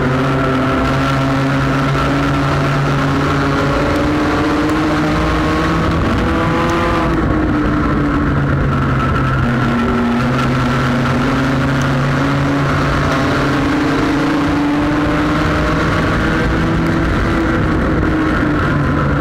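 Front-wheel-drive sport compact race car's engine heard from on board under racing load, loud and steady. Its pitch climbs over a few seconds and drops back several times as the revs rise and fall around the oval, with road and wind noise beneath.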